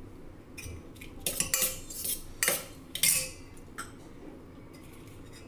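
Steel spoon clinking and scraping against a stainless-steel mixing bowl as chopped vegetables are stirred, a run of sharp clinks over about three seconds with a short metallic ring on the loudest ones.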